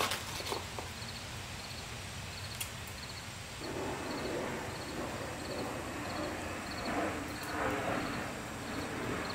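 A ladle stirring and pressing thick sauce in a mesh strainer, with liquid sloshing and running through, growing louder about three and a half seconds in. Behind it a cricket chirps steadily, a short high chirp about twice a second.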